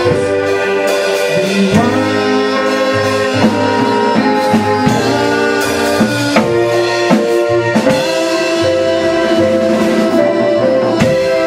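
Small live band playing: a drum kit keeps the beat with regular strikes under a keyboard and a woodwind holding long melody notes.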